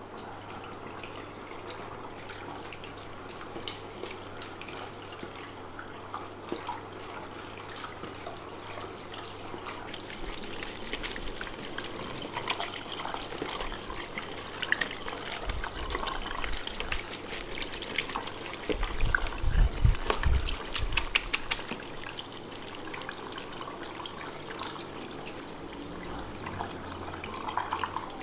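Water from a handheld shower sprayer running over wet hair into a salon wash basin while fingers rub through the hair during a rinse. The splashing grows louder about a third of the way in, with a few low thumps and crackles near the middle before it settles.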